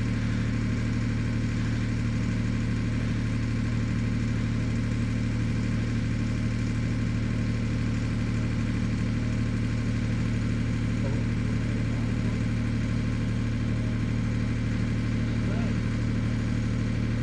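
Valach R5-420 five-cylinder radial engine of a large scale model airplane idling steadily.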